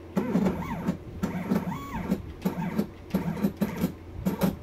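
Stepper motors of a CNC-converted mini mill jogging the table in several short moves, each a whine that rises and then falls in pitch as the motor speeds up and slows down, over a steady low hum.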